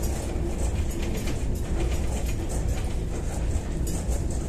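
Cabin noise of a Kyiv-12.03 trolleybus running at speed: a steady low rumble of road and running gear, a faint electric-motor hum, and light rattling.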